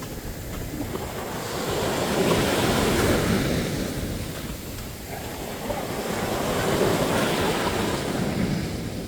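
Sea waves breaking and washing up the beach, the surf swelling to a peak twice, about two and a half seconds in and again about seven seconds in.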